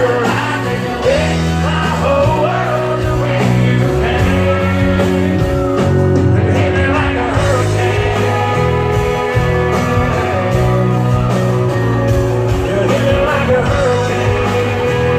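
Live country band performance: a male lead vocal sung over electric guitars, bass and drums.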